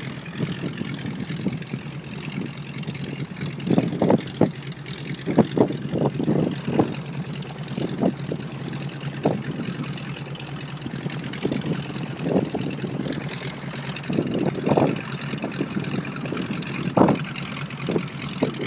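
North American T-6 Texan's nine-cylinder Pratt & Whitney R-1340 Wasp radial engine idling with a steady low drone, broken by irregular short louder bursts.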